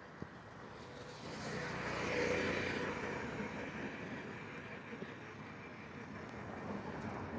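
Road traffic noise, with a vehicle passing close by that swells and fades about two seconds in.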